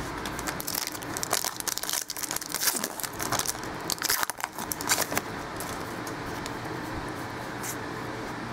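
Foil trading-card pack wrapper crinkling and tearing as a pack is ripped open and the cards pulled out, a rapid run of crackles for about the first five seconds, then quieter handling with a few clicks.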